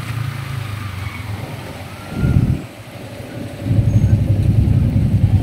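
Motor scooter in motion through traffic: a low engine-and-traffic rumble with a short loud burst a little after two seconds, then a louder rumble from about two thirds of the way in.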